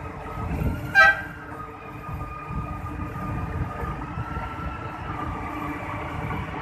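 An MRT-3 Tatra RT8D5M light rail train gives one short horn toot about a second in, then rolls past on the rails with a low rumble and a steady high whine.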